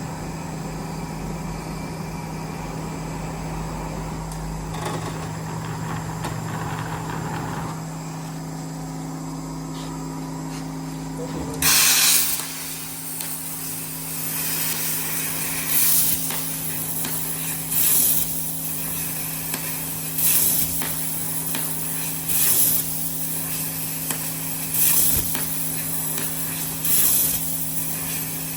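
1530 CNC sheet cutting machine with a 1.5 kW source working: a steady low hum throughout, and from about twelve seconds in, short bursts of loud hissing repeating roughly every two seconds.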